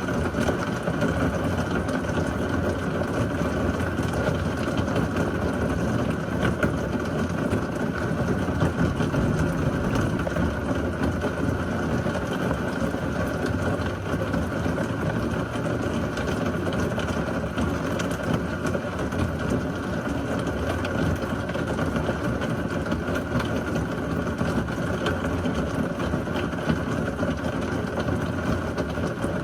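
Heavy rain from a severe thunderstorm falling steadily: a dense, even hiss full of fine drop ticks.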